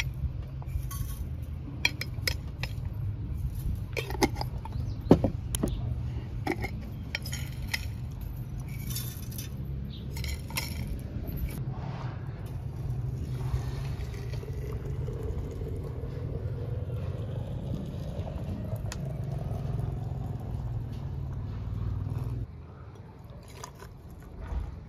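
Glass jar, lid and steel tea infuser clinking as loose tea leaves are put into a glass teapot. Then hot water is poured from a steel pot into the teapot, the pour rising slowly in pitch as the pot fills, over a steady low rumble.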